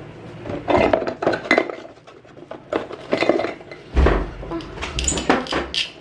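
Small toy ice cream set pieces (cups, cones and spoons) clattering and clinking as they are handled and knocked together, in a quick irregular run of light clicks. There is a dull bump about four seconds in.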